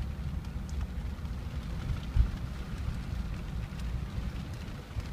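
Jeep driving on a dirt road, heard from inside the cabin as an uneven low rumble, with scattered raindrops ticking on the windshield and one louder bump about two seconds in.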